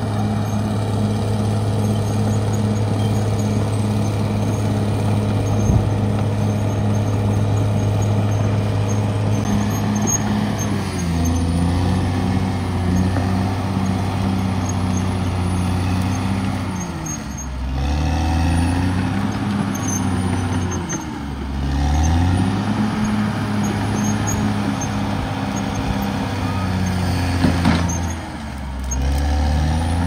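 Caterpillar D6R XL bulldozer's diesel engine running steadily. From about a third of the way in, its pitch dips and climbs back several times as the blade pushes soil and brush, with one sharp knock near the end.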